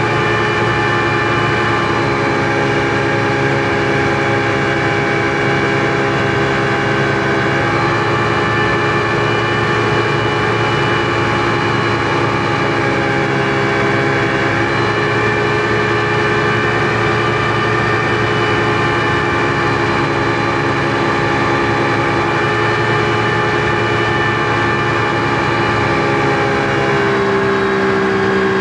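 Speedboat engine running steadily at speed, heard from inside the boat's cabin, its pitch shifting slightly a few times and changing more clearly near the end.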